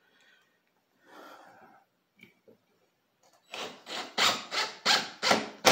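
Cordless drill driving a stepped pocket-hole bit into 3/4-inch plywood through the pocket-hole jig's guide. It cuts in quick short pulses, two to three a second, from about three and a half seconds in, going on steadily at the very end.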